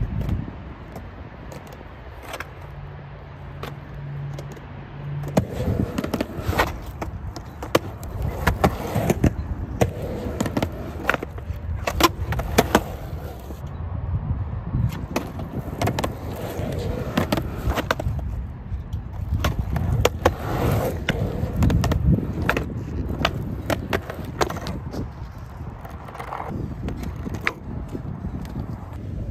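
Skateboard wheels rolling on rough concrete, a steady low rumble, broken by many sharp clacks and knocks as the board pops, strikes a concrete ledge and lands again.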